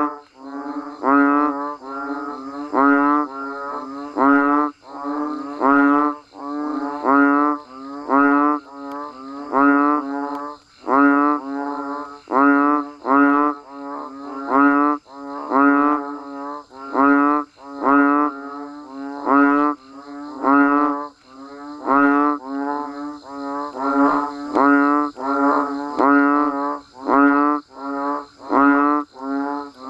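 Banded bullfrogs (Asian painted frogs) calling in chorus: low, moaning calls repeating about one to two a second, overlapping one another, over a steady high drone.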